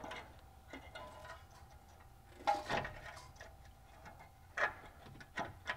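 A few sharp metal clinks and knocks as the rusty cast-iron exhaust manifold of a Honda Civic 1.6L SOHC engine is wiggled loose and slid off its studs by hand, the loudest about halfway through and near the end.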